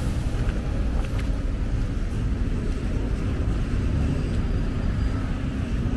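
Busy city street traffic: cars passing with a steady low rumble.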